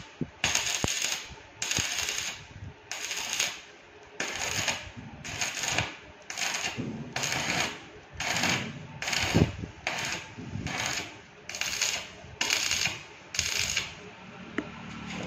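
Stick (arc) welding a joint in steel bar stock, a firm weld after tacking. The arc crackles and sizzles in short, regular bursts, about three every two seconds, breaking off between each.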